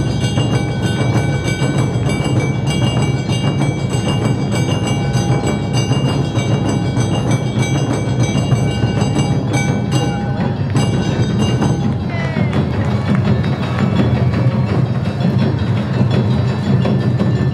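Live Awa odori music from a marching band: small metal gongs ringing in a steady beat over drums, with the high ringing thinning out about twelve seconds in.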